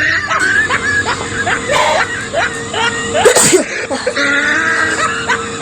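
A single sharp sneeze about three seconds in, over background music.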